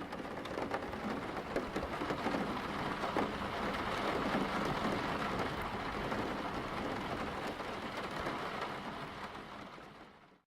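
Steady rain falling, with many small separate drop hits, fading out near the end.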